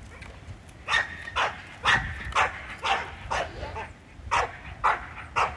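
Belgian Malinois barking in a steady run of about nine barks, roughly two a second, starting about a second in. The dog is back-tied and barking at a bite tug held just out of reach, the drive-building stage of bitework.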